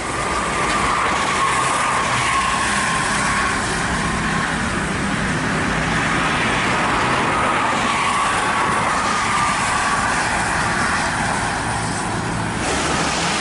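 Heavy highway traffic on a wet road: tyres hissing through standing water and spray, with bus and truck engines running steadily as they pass.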